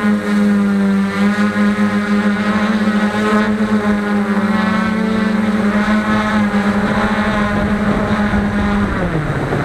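Quadcopter's four Emax MT2216 810KV brushless motors and propellers droning at a steady pitch as it descends, then falling in pitch near the end as the motors slow for landing.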